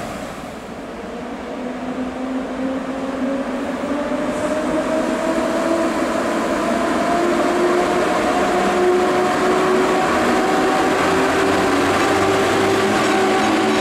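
PKP EP07 electric locomotive hauling a passenger train, accelerating: a motor whine rises slowly in pitch as it picks up speed over the rumble of the train, growing louder as it draws near.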